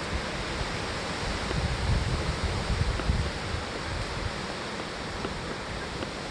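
Steady wind blowing outdoors, a constant hiss with uneven low gusts buffeting the microphone.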